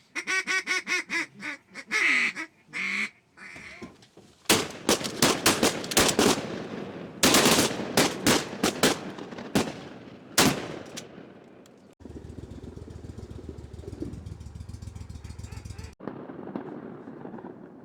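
A fast series of duck quacks, then a volley of shotgun shots from several guns, about a dozen in six seconds, each ringing off. After that comes a steady low rumble.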